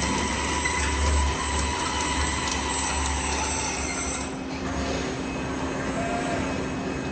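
1/14 scale RC excavator's electric drive motors and gearing whining steadily, with a steady hum underneath and a pulsing low rumble.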